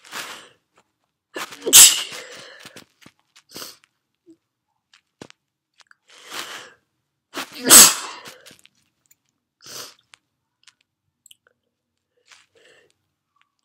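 A woman sneezing twice, wet sneezes about six seconds apart, each coming after a drawn-in breath, with short fainter breaths between them.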